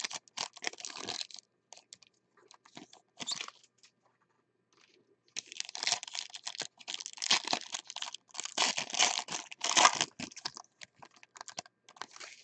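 Foil trading-card pack wrappers crinkling and tearing as they are ripped open by hand. It comes in crackly bursts, with a pause of about two seconds before a longer, louder stretch.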